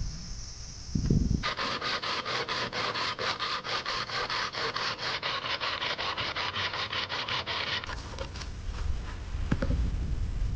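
Hand saw cutting through wood in quick, even back-and-forth strokes, about six a second, starting a little over a second in and stopping near eight seconds. A few knocks follow near the end.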